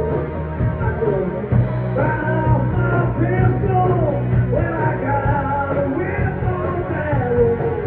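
Live rock band playing loudly: a male singer over electric guitar, bass and drums.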